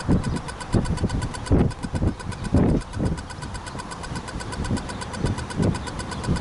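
Westinghouse Hybrid electronic level crossing bells ringing continuously in rapid, evenly spaced strokes, the warning that the crossing is active. Irregular low rumbles come and go beneath the bell.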